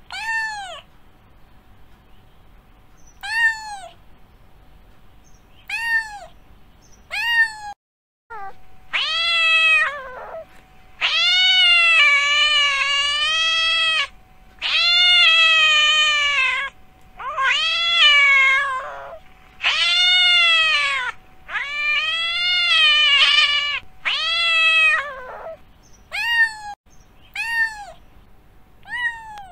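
Domestic cat meowing: a few short meows a couple of seconds apart, then a run of long, drawn-out meows that rise and fall in pitch, each lasting one to three seconds, then short meows again near the end.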